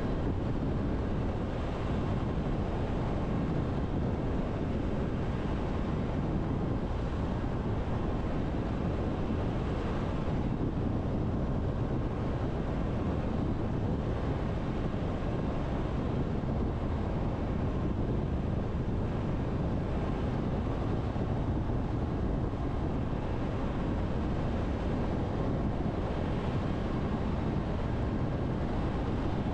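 Road noise of a car driving at steady speed: an even rumble of tyres and wind that holds constant, heaviest in the low end, with no distinct events.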